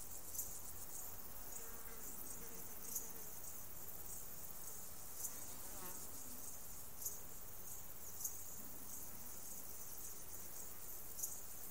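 Steady high-pitched insect chorus, with short louder ticks every second or two.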